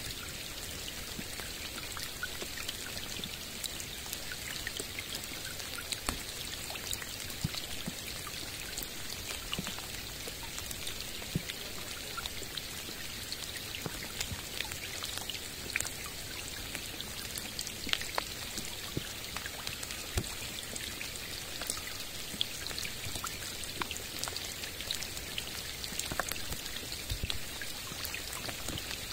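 Steady rain falling on a lake's calm surface and the surrounding forest: an even hiss of drops on the water, with many separate drops ticking sharply here and there.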